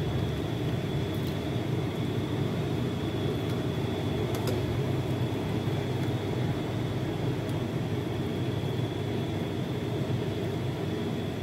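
Steady low mechanical hum, like a fan or motor running, with a thin steady high whine above it. A couple of faint clicks come from a ladle against the pot and bowl as porridge is served.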